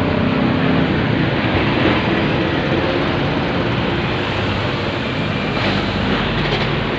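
Roadside traffic: motor vehicle engines running close by, over a steady rushing noise.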